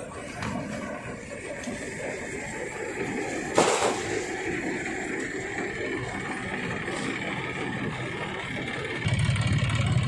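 Mini combine harvester running steadily, driven by a John Deere 5045D diesel tractor, its threshing drum and fans giving a constant drone. A sheet-metal panel of the straw box clanks once, sharply, about three and a half seconds in. Near the end the running turns louder and lower.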